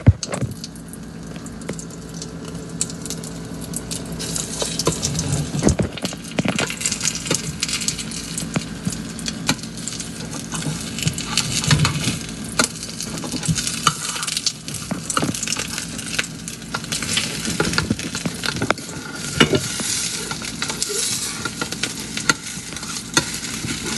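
Beaten egg omelet sizzling in a frying pan, a steady hiss broken by scattered clicks and knocks.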